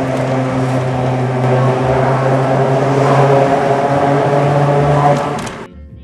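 Car tyres humming steadily on a steel-grid bridge deck, heard from inside the cabin as a sustained droning tone over road noise. The hum cuts off suddenly about five and a half seconds in.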